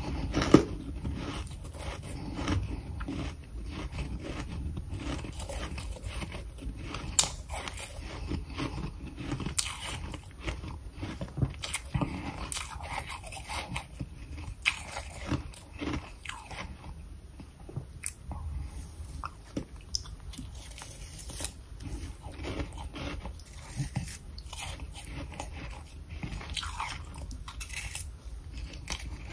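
Close-up biting and chewing of mouthfuls of powdery freezer frost: an irregular run of many short, soft crunches.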